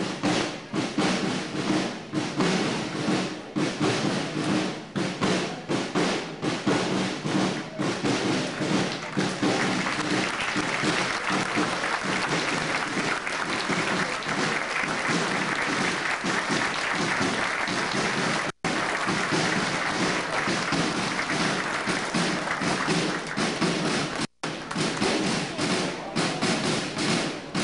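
Audience applauding with music playing underneath; the clapping thickens about ten seconds in. The worn recording drops out for an instant twice in the second half.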